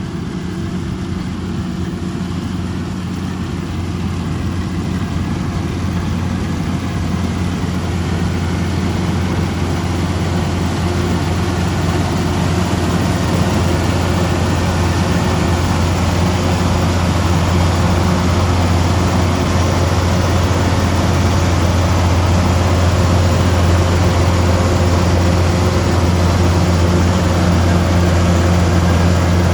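Kubota DC-105X rice combine harvester running steadily with a deep engine hum and mechanical noise, slowly growing louder.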